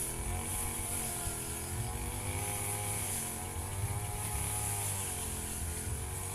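Firman FGB 528 brush cutter engine running steadily while cutting grass, its pitch wavering up and down as the blade takes the load.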